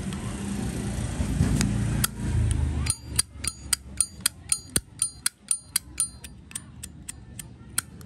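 Zippo lighter's hinged metal lid flicked open and snapped shut over and over, starting about three seconds in: a fast, even run of sharp metallic clicks, each with a bright ring, about four a second. Before that there is a low background rumble.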